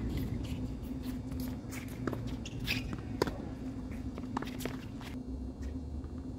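Tennis rally on a hard court: rackets strike the ball in sharp pops about a second apart, with footsteps and shoe scuffs on the court between them, over a steady low hum.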